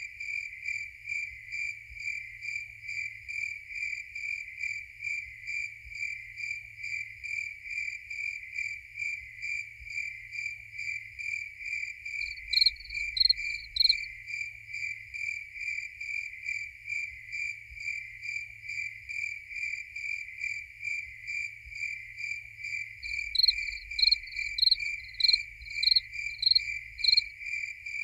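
Crickets chirping in a steady, even pulse of a few chirps a second, with fainter higher-pitched chirping layered above. A louder, nearer cricket joins with a short run of chirps about halfway through and a longer run near the end.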